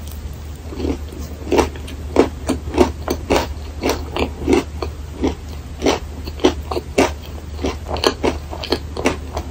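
A person chewing a mouthful of crisp waffle and whipped cream with the mouth closed, in a steady rhythm of about three chews a second.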